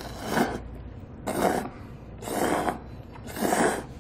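A person slurping cold mul-naengmyeon noodles from a bowl: four loud slurps, about one a second.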